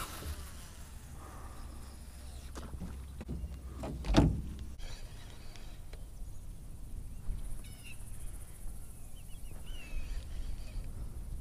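Outdoor riverbank ambience: a low rumble with one sharp thump about four seconds in, a few light clicks, and a few faint high chirps in the second half.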